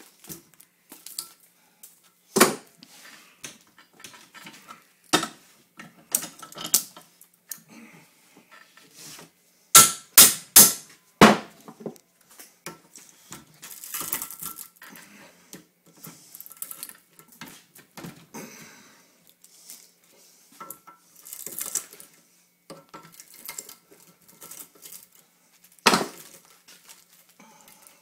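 Seal puller prying copper windings out of a cut AC motor armature clamped in a vise: irregular metal-on-metal clicks, scrapes and knocks, with a quick run of four loud knocks about ten seconds in.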